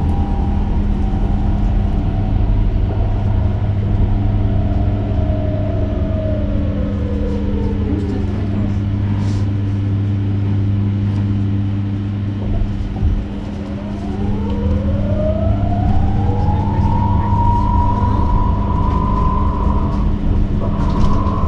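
Electric bus traction motor whining from inside the cabin over a steady low electrical hum: the whine falls in pitch as the bus slows to a near stop, then rises again as it accelerates away.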